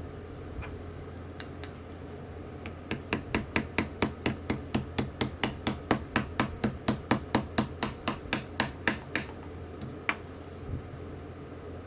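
A run of light, evenly paced hammer taps, about three a second for some six seconds, with a few single taps before and after. The taps are driving a part of a Penn 320 GTi fishing reel down until it is seated.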